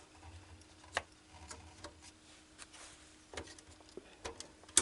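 Hands opening and handling a small object, probably packaging: a string of scattered sharp clicks and taps with light rubbing in between, the loudest click near the end.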